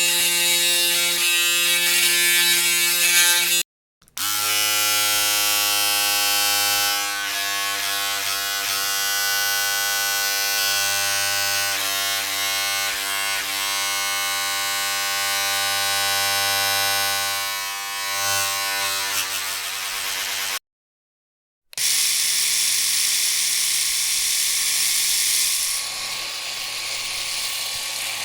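Electric shaver buzzing steadily, in three separate stretches cut by two short silences, about four and about twenty-one seconds in; the pitch and hiss differ from one stretch to the next.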